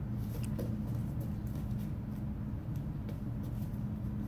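A steady low hum, with a few faint light taps about half a second in.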